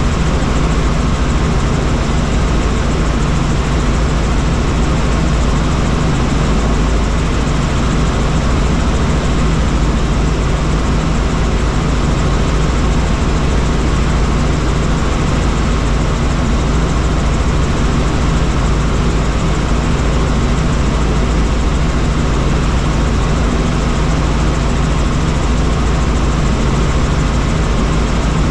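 Helicopter in flight: a steady, unchanging drone of the engine and rotor, with a low hum under a loud even hiss.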